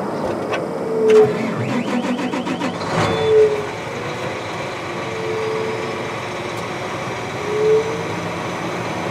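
John Deere 8235R tractor's six-cylinder diesel running under way, heard from inside the cab as a steady engine and drivetrain noise. A quick run of ticks comes about two seconds in, then a single knock, and a few short tones rise and fall over the engine noise, the longest in the middle.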